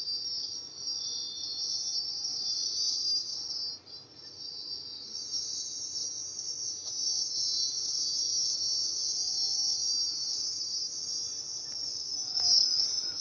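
Steady, high-pitched chirring like crickets, with a brief dip a little under four seconds in.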